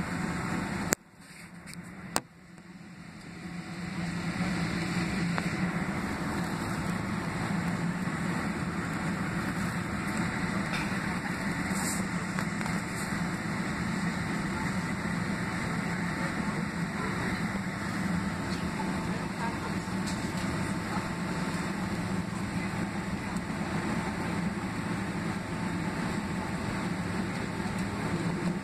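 Steady cabin drone of a Boeing 767-300ER holding for takeoff, its General Electric CF6 engines at idle. Two clicks come about one and two seconds in, with the sound briefly dipping, then the drone comes back up and holds.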